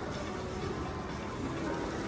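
Background music over a steady background hubbub.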